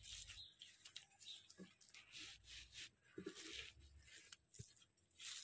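Near silence, with faint scattered rustling of the clear plastic film on a diamond painting canvas as it is spread out and smoothed flat by hand.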